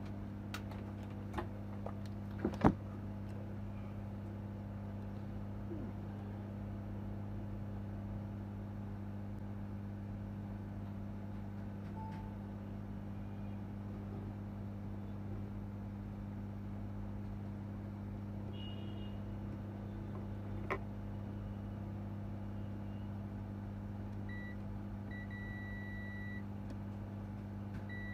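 Steady low electrical hum of bench repair equipment, with a few sharp clicks of metal tools on the board in the first three seconds and once more later. A steady high electronic beep starts near the end.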